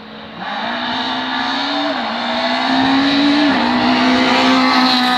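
Rallycross car engines accelerating hard towards and past the fence. The nearest engine climbs in pitch, with brief drops at upshifts about two and three and a half seconds in, and it gets louder as the car closes in.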